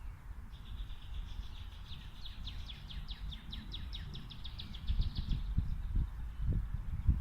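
Female northern cardinal singing: a steady high whistle that breaks into a fast run of down-slurred whistled notes, about five a second, and stops about five and a half seconds in. A low rumble with a few thumps runs underneath.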